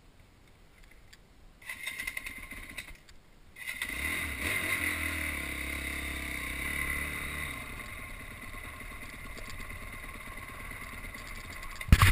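A small vehicle engine starts about three and a half seconds in and keeps running steadily, with loud rough knocks and rubbing on the microphone near the end.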